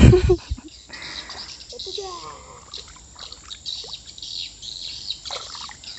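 A brief loud splash right at the start as a hooked fish thrashes at the water's surface, then a steady background of birds chirping and insects trilling, with faint voices.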